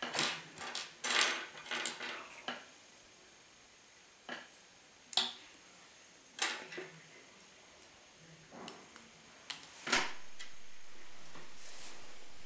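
Hard plastic Lego pieces clicking and rattling as they are picked from a pile on a wooden table and snapped together. There is a quick cluster of clicks at the start, then scattered single clicks, the loudest about ten seconds in.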